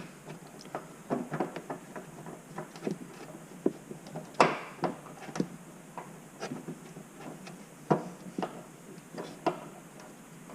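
Irregular small plastic clicks and knocks as the turn-signal bulb socket and trim tabs of the front light housing are handled by hand. The loudest knock comes about four and a half seconds in, with another near eight seconds.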